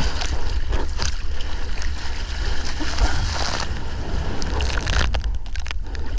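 Seawater sloshing and splashing right at an action camera in the surf, with many short splashes over a steady low rumble of water and wind on the microphone.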